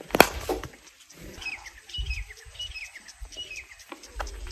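A cricket bat hits the ball with a sharp crack just after the start. A bird then chirps repeatedly in short, falling notes.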